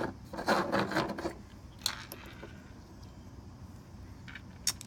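Hands working a small folding knife and a precision screwdriver on a tabletop. There is about a second of rustling and scraping, then two sharp little clicks, one about two seconds in and one near the end.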